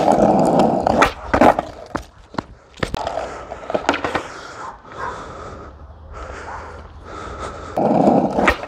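Skateboard wheels rolling on asphalt, then several sharp clacks as the board pops and hits the pavement during a flip trick. After a quieter stretch, rolling starts again near the end.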